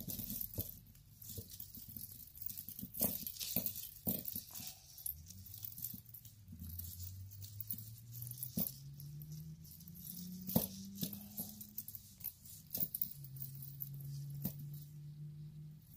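Small metal clicks and light jingles of costume-jewelry chains and rhinestone settings as tangled necklaces are worked apart by hand. From about five seconds in, a faint low hum-like tone runs underneath, shifting pitch in a few steps.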